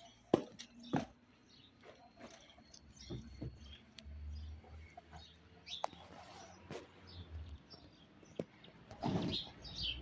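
Small birds chirping now and then, with a few sharp clicks or knocks and a short burst of noise near the end.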